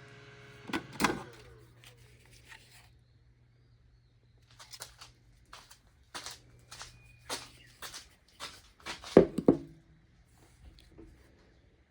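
Makita TP131D cordless impact driver being handled: a scattered series of sharp clicks and knocks, the loudest cluster about nine seconds in, with no motor running. A low steady hum underneath fades out about eight seconds in.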